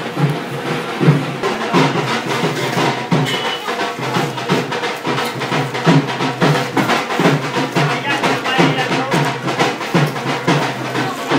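Background music with a steady drumbeat, about two beats a second.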